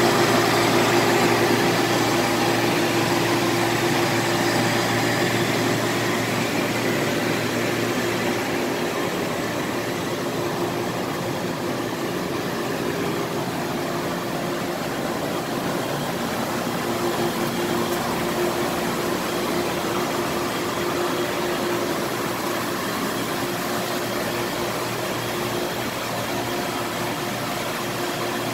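Pump motors of a developer processing machine running steadily, giving a hum with a held tone over a wash of noise. It is loudest in the first few seconds and drops a little after about eight seconds.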